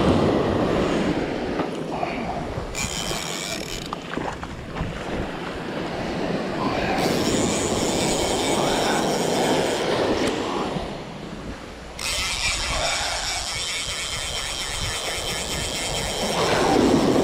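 A fly reel buzzing in several long runs while a hooked snook is fought on a bent fly rod: the fish is pulling or giving line. Surf washes on the beach, with wind on the microphone.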